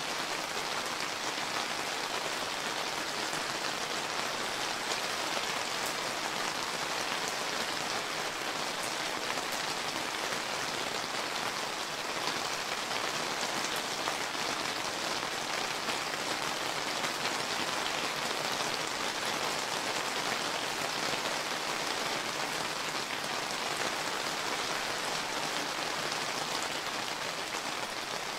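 Steady summer rain falling on a surface, an even hiss of many small drop patters with no let-up.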